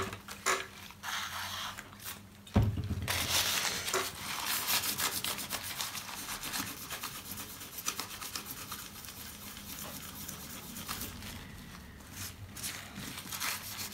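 Paper towel being folded, then from about two and a half seconds in, steady scratchy scrubbing of the paper towel inside an iPhone 5S housing, wiping off old battery adhesive dissolved with benzine.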